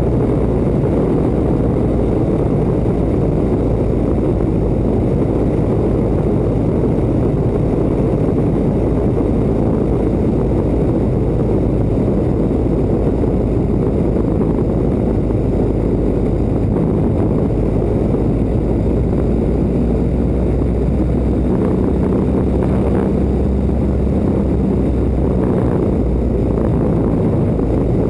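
1940 Waco biplane in flight: its radial engine running steadily under heavy rushing wind on a camera mounted out on the wing. A clearer low engine hum comes through in the last several seconds.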